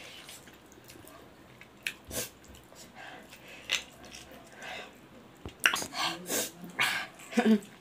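Close-up eating sounds from biting and chewing pork leg by hand: wet smacks, clicks and breathy sniffs, sparse at first and coming thick and loud in the last two seconds.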